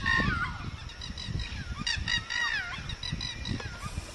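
Animal calls: many short, high, whistling cries that glide up and down in pitch, overlapping one another, over a low rumble.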